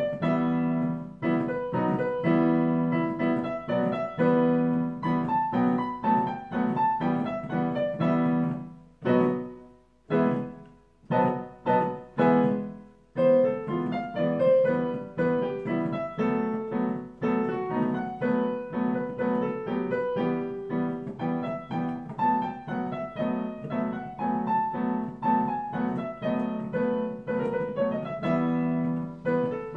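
Solo piano improvisation: a melody played over a steady repeated low accompaniment. About nine seconds in it thins to a few separate struck chords with short silences between them, and the full playing resumes about four seconds later.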